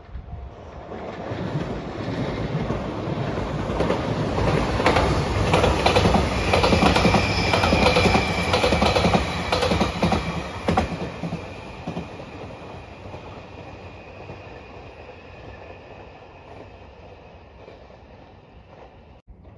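Express electric train passing at speed: the rumble builds over a few seconds and peaks with rapid clicking of wheels over rail joints, then fades slowly as it moves away. A thin, high, steady whine lingers into the fade.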